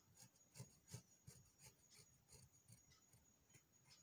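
Faint, irregular scratching of a pencil tracing around a template onto fabric.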